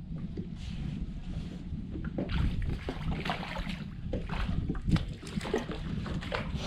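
Wind on the microphone and water slapping against a small boat's hull, with irregular knocks and splashes while a crappie is played and reeled in on a bent spinning rod.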